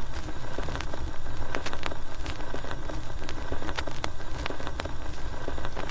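Old-film style surface noise: irregular sharp pops and clicks over a steady hiss and low rumble.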